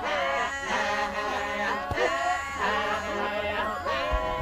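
Maasai warriors chanting together: several men's voices overlap in a rhythmic chant with swooping pitches. It is the chant of their ritual leaping dance.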